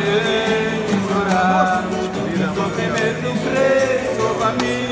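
Acoustic guitar playing with voices singing a Cape Verdean farewell morna.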